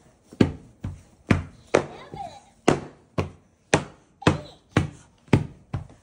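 Moluccan cockatoo swinging a soft fabric ball in its beak and knocking it against the door and floor, about two knocks a second in a steady rhythm.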